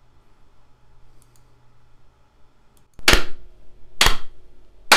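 Three sharp hand claps about a second apart, each with a short ring after it, made as sync marks for lining up a separately recorded audio track with the video.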